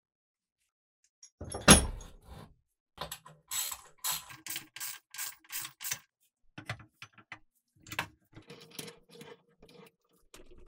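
Metal parts and a bench vise being worked on a wooden workbench: a loud metallic clunk about two seconds in, then quick runs of sharp metallic clicks and scattered lighter clinks as the rusty pump's base is clamped in the vise.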